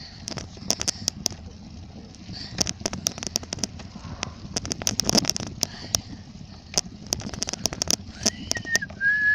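Bicycle being ridden: a low rumble of tyres and wind with many irregular sharp clicks and crackles. About eight seconds in, a person starts whistling, the notes gliding slightly.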